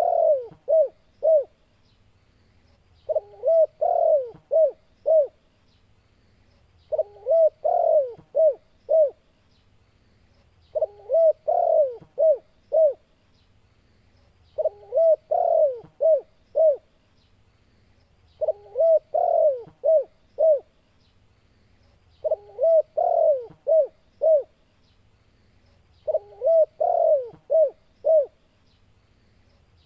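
Spotted dove (tekukur) cooing: the same phrase of four or five coos, the first ones run together and the last few short and separate, repeated about every four seconds.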